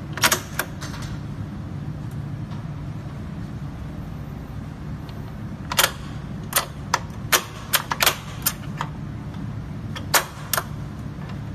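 Sharp clicks and knocks of LED display modules and tools being handled on an aluminium screen cabinet, a pair about a quarter second in, a quick run of about a dozen between six and nine seconds, and two more near the end, over a steady low hum.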